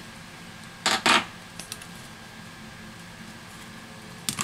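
Short, sharp metallic clicks as the metal-backed LCD panel is set down and knocked into place against the iPad Air 2's aluminium frame: two quick clacks about a second in and two more near the end.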